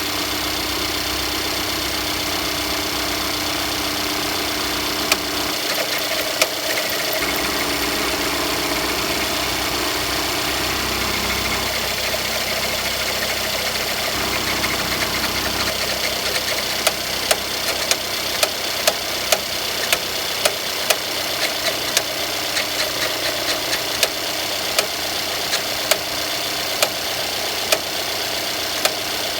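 Mercedes E200 with the M274 four-cylinder turbo engine running cold with the heater fan on, a steady running noise under sharp, irregular clicks. A couple of clicks come about five seconds in, then they come every second or so through the second half. The clicks are the knocking/clicking the owner hears only when the heater or blower is switched on in the first 3–5 minutes from cold.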